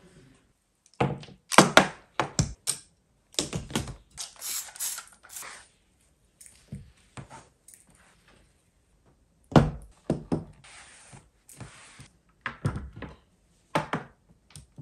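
Objects such as a mirrored tray and glass perfume bottles being lifted and set down on a dressing table top, giving a string of sharp knocks and thunks. Between them comes the softer rub of a microfiber cloth wiping the surfaces.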